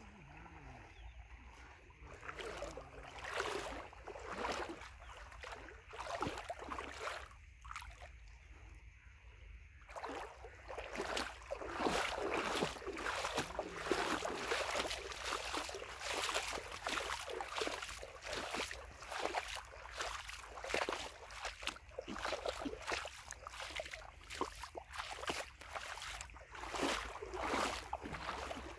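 Legs wading through shallow river water, a splash and slosh with each stride. The splashes are scattered for the first few seconds, then come in a steady run from about ten seconds in.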